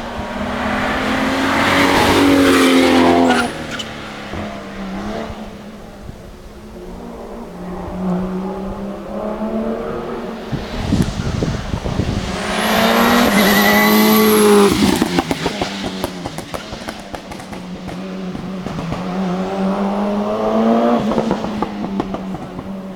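Hillclimb race cars accelerating hard past, engines revving up and dropping at gear changes; three loud passes, at the start, in the middle and near the end, over a steady low hum.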